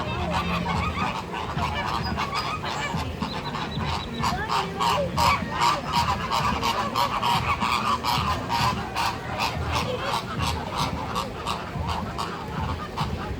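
A flock of flamingos honking, many short nasal calls overlapping into a continuous gabble, busiest in the middle.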